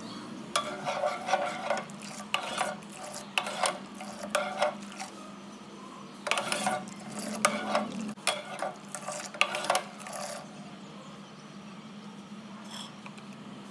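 A spoon stirring milk in a cooking pot, scraping against the pot in a run of irregular strokes. The strokes stop about ten seconds in, leaving a steady low hum.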